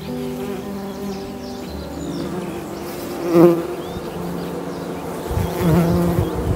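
Bees buzzing: several droning tones that shift in pitch now and then, with one buzz swelling louder briefly about halfway through.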